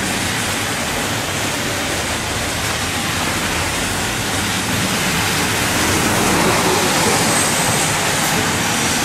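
Steady rush of heavy rain and car tyres hissing on a wet street, growing a little louder from about six seconds in as a truck passes close by.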